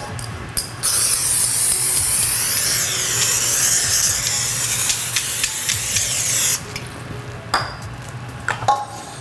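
Aerosol cooking-oil spray hissing onto a cake pan to grease it, in one continuous burst of about five and a half seconds that starts about a second in and cuts off sharply.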